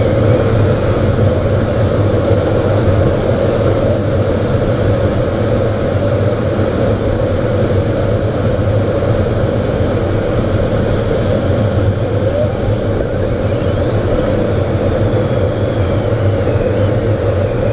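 Steady rush of airflow around a glider in flight, heard from the cockpit, with a faint high thin tone wavering above it.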